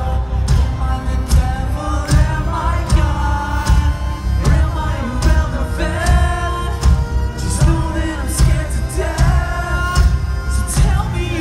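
Live rock band playing with a male lead singer over electric guitars, bass and drums with crashing cymbals, heard from the crowd in a concert hall.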